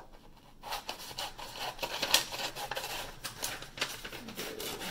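Scissors snipping through paper: a quick, uneven run of short crisp cuts starting about half a second in.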